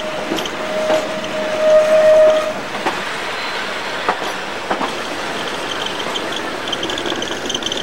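A train heard from aboard while riding: steady running noise with scattered wheel clacks. A long steady tone ends about two and a half seconds in, and a high wheel squeal sets in near the end.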